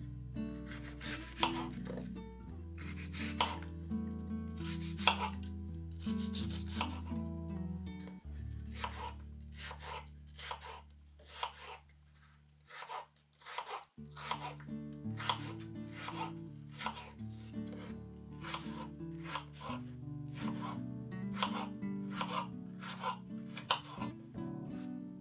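Kitchen knife cutting peeled apples into chunks and small cubes on a wooden cutting board: a long series of sharp chops against the board, over background music. The chopping and the music dip briefly about halfway through.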